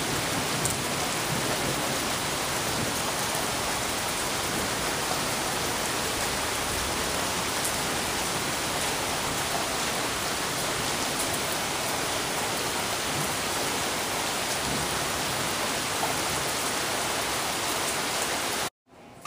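Heavy rain falling steadily, an even hiss of water with no let-up, which cuts off suddenly near the end.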